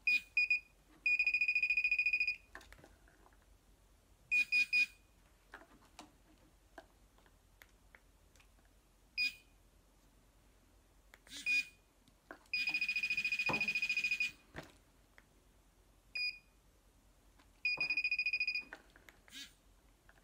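A handheld waterproof pinpointer metal detector beeping: a high-pitched electronic tone that sounds in short blips and in three longer held tones of a second or more, as the new unit is tested and alerts on metal.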